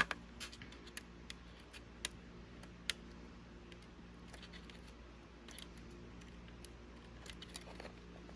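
Scattered small clicks and taps of tools and small plastic and metal parts being handled while a cassette Walkman is dismantled for repair, irregular and faint, the sharpest about three seconds in, over a faint steady hum.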